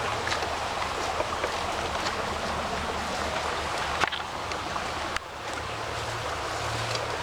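Small mountain creek rushing steadily over a dam of stones, with a few sharp ticks and splashes. The level drops suddenly about five seconds in.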